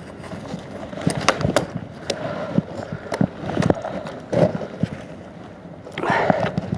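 Irregular sharp knocks and scrapes, several a second at times, with a brief rustling scrape about six seconds in.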